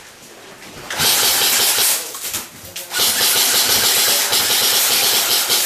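Airsoft rifle firing on full auto in two bursts: a short one about a second in, then a longer one of nearly three seconds.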